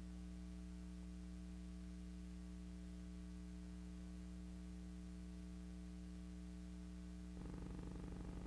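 Steady electrical mains hum with faint hiss, the background of a silent film's soundtrack, with nothing else to be heard. About seven seconds in, the hum gets slightly louder and takes on a fast, even flutter.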